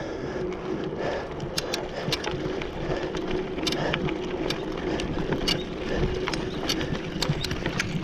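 Mountain bike rolling, from a concrete path onto a packed-dirt trail: steady tyre and riding noise with scattered sharp clicks and rattles from the bike.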